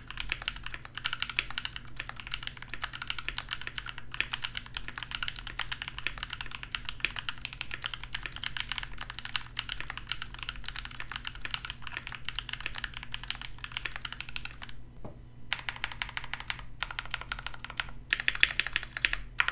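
Mechanical keyboard with stock, factory-lubed Gateron Yellow KS-3 Pro linear switches being typed on fast and continuously, a dense run of keystroke clacks with a short lull about fifteen seconds in.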